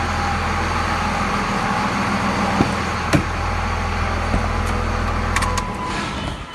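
1999 Dodge Ram 2500's 5.9-litre 24-valve Cummins inline-six turbodiesel idling steadily, with a few sharp clicks over it; the engine sound fades near the end.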